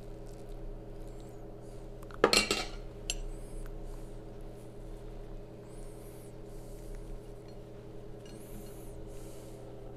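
A metal spoon clinks against a ceramic plate about two seconds in, with a smaller clink just after, as spinach filling is spooned onto a crepe. Quieter handling sounds follow as the crepe is rolled by hand, over a steady low hum.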